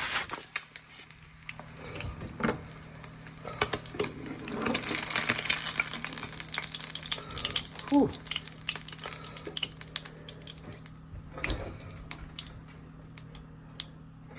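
Eggs sizzling in a frying pan, loudest a few seconds in, with sharp clicks and scrapes as a fried egg is lifted out of the pan.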